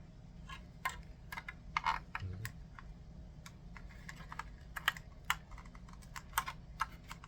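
Irregular sharp clicks and taps of the digital power meter's plastic parts being handled and pried at, with no steady rhythm; the loudest come about two seconds in and about five seconds in.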